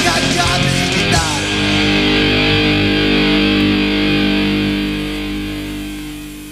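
Hardcore punk song ending: fast drums and distorted guitar stop on a final hit about a second in, leaving a held distorted guitar chord ringing, which fades away near the end.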